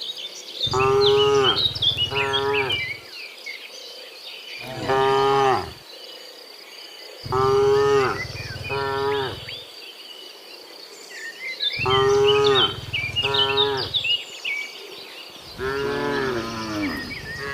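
Cows mooing: about five long, loud moos, several breaking into two parts, with gaps of a second or two between them.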